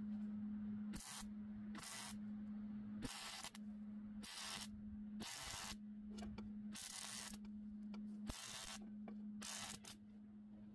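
Wire-feed welder laying a string of short tack welds on a thin steel plate patched onto a mower deck: about eight brief bursts of arc crackle, each under a second, over a steady low hum.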